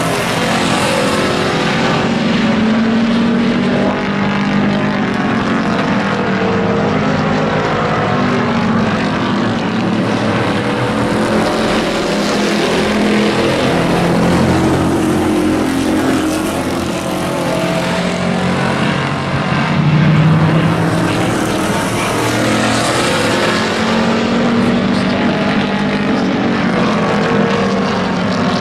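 Engines of a pack of small hobby-class race pickup trucks running hard around an oval, several engines at once, their pitch rising and falling as drivers lift and get back on the throttle. It is loudest about two-thirds of the way through.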